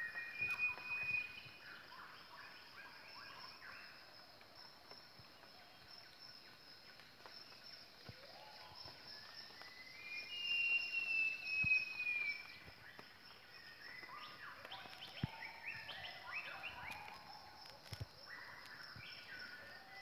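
Rainforest ambience: a steady high insect drone, with gibbons calling in series of short notes that climb in pitch. About ten seconds in, a louder whistled call slides down in pitch.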